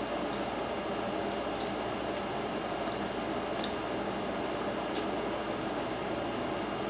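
Mouth sounds of eating crab meat: wet, squishy chewing and lip smacking, with a few scattered sharp clicks, over a steady background hiss.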